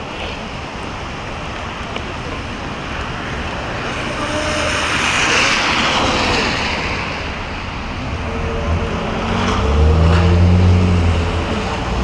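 Car tyres hissing on a rain-soaked road as a car drives past, swelling and fading about five seconds in. Over the last few seconds a vehicle engine runs with a low, loud hum.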